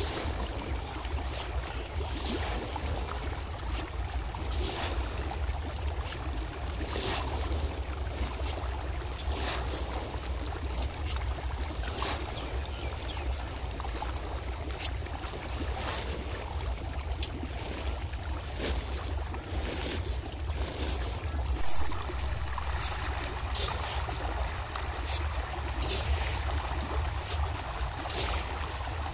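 Many pond fish thrashing at the water's surface in a feeding frenzy, a continuous churning of water broken by frequent sharp splashes. Wind rumbles low on the microphone.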